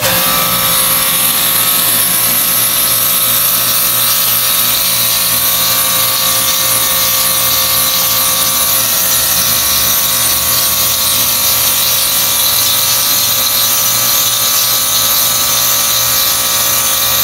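Kärcher K4 electric pressure washer running under load, spraying a high-pressure water jet: a steady motor-pump whine under a strong hiss of spray, starting abruptly as the trigger opens. It is running at full pressure, the faulty part that had left it with no pressure now replaced.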